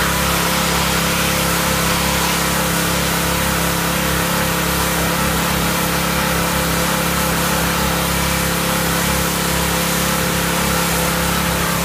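Pressure washer spraying water onto a car's painted side panels: a steady hiss of spray over a constant low hum.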